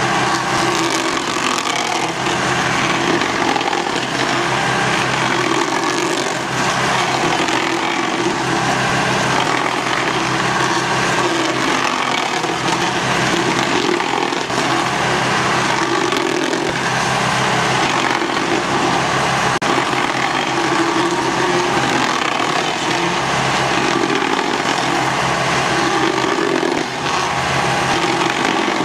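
Ferri Rotor stump grinder grinding into a wooden stump over the steady drone of the tractor engine driving it. The grinding swells and eases every few seconds as the cutter wheel bites.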